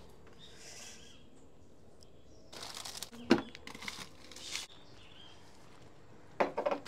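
A plastic bag of flour crinkling and rustling as it is handled, with a sharp knock about three seconds in and another knock near the end.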